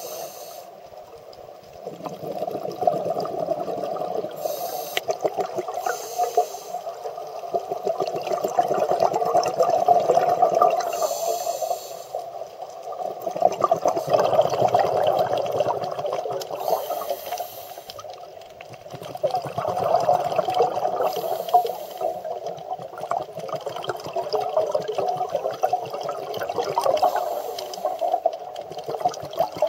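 A scuba diver breathing through a regulator. Each breath is a short hiss on the inhale, then a long bubbling rush of exhaled air, about every five seconds.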